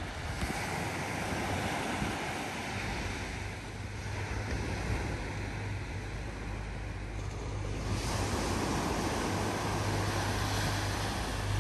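Sea surf washing on the shore, with wind rumbling on the microphone; the hiss grows brighter about eight seconds in.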